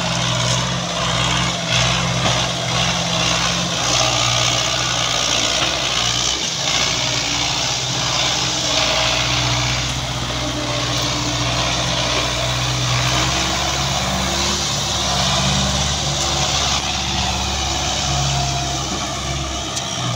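Belarus MTZ-50 tractor's four-cylinder diesel engine running under load as it pulls a trolley loaded with mud, a steady note whose pitch shifts a little now and then.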